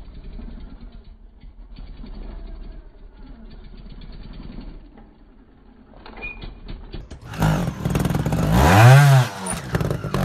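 Trials motorcycle engine blipped hard, its pitch rising and then falling, loudest about nine seconds in, after a much quieter stretch.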